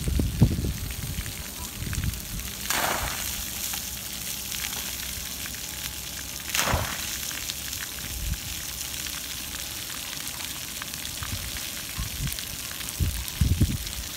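Splash-pad ground jet spraying water in a steady hiss, with brief louder splashes about three and seven seconds in as the spray is broken. Low rumbles near the start and near the end.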